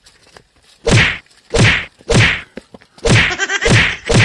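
A beating of slaps and punches: six loud whacks in quick succession, each with a deep thump under it.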